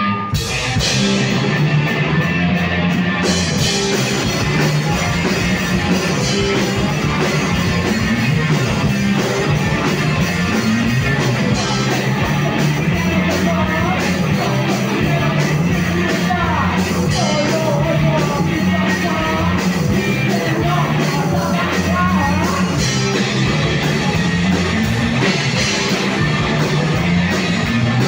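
Live rock band playing at full volume, with electric guitars through amplifiers and a drum kit, the music running on without a break.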